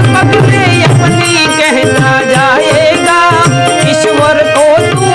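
Instrumental interlude of a Hindu devotional dhun: a melody instrument plays ornamented phrases with slides and vibrato over a steady tabla rhythm.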